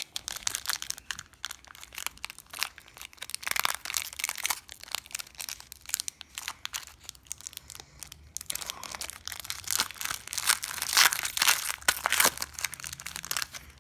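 Foil Pokémon card booster pack crinkling and tearing as it is handled and ripped open by hand, a dense irregular crackle that is loudest in the last few seconds.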